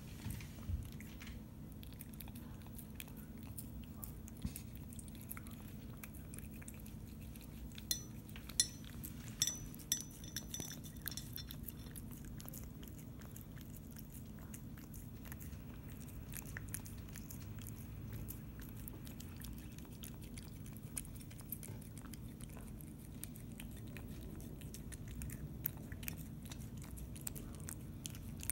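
A cat eating wet pâté cat food off a ceramic plate: quiet, steady chewing and licking with small wet clicks, and a few sharper clinks about a third of the way in.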